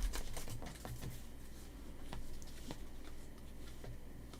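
Trading cards being handled and flipped through one at a time: faint, scattered soft clicks and light rustle.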